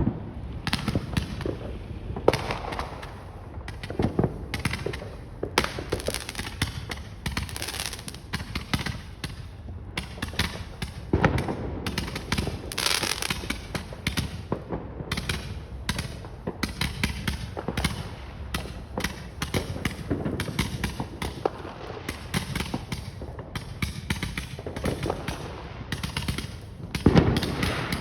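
Many consumer fireworks going off at once from several directions: a continuous, irregular barrage of bangs, pops and crackles, with louder booms scattered through.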